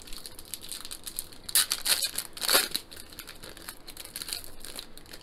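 A Topps Chrome trading-card pack's foil wrapper being torn open and crinkled by hand. It gives an irregular crackling, with a few louder rips between about one and a half and two and a half seconds in.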